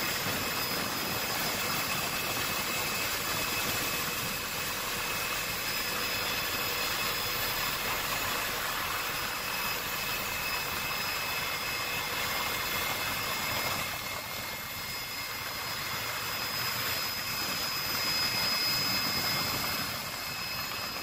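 Helicopter turbine engine and rotor heard from inside the cabin, an even noise with a steady high-pitched whine.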